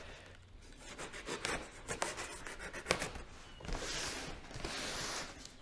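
Cardboard box being handled and turned: cardboard rubbing and scraping against the hands and the bench, with scattered light knocks and a longer scraping stretch near the end.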